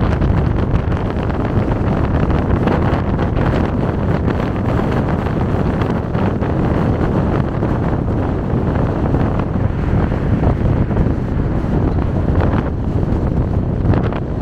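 Wind buffeting the microphone: a steady, loud, low rumbling hiss with no letup.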